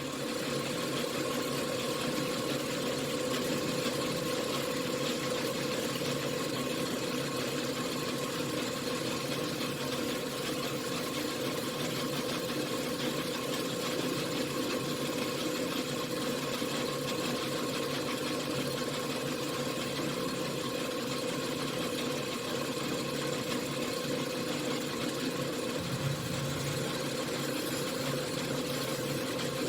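1953 Logan 12" x 24" engine lathe running steadily, a constant mechanical hum from its motor and drive.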